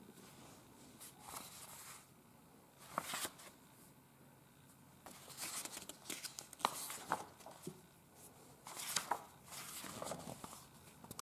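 Paper pages of a printed instruction manual being turned and handled, rustling faintly in several short bursts with a few sharp clicks among them.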